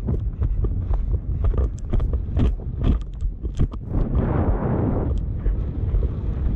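Horse's hoofbeats thudding on turf at speed, with wind rushing over a GoPro's microphone. About four seconds in, a louder rush of wind noise.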